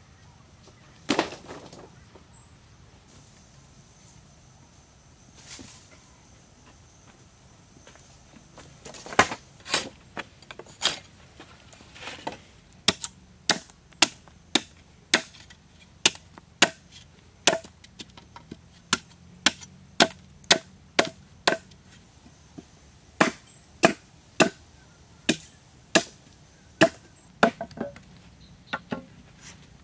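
A machete chopping at the end of a green wooden pole propped on a log. One knock comes about a second in, and from about nine seconds in there is a steady run of sharp chops, roughly one every half second to second.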